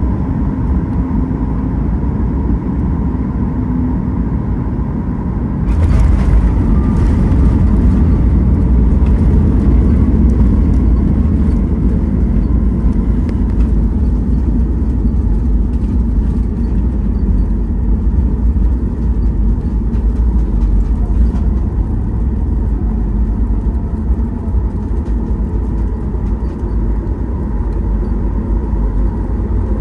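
Cabin noise of a Boeing 737 MAX 8 on its landing: a steady engine and airflow sound with a constant hum, then about six seconds in a sudden jump to a louder rumble with rattling, the wheels meeting the runway and rolling out, easing slightly toward the end.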